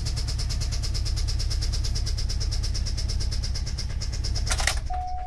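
Subaru EJ20 flat-four engine idling at about 1,000 rpm with a rapid, even knocking from inside: the sound of a blown engine. Near the end a short rattle breaks in, the engine sound fades, and a steady tone begins.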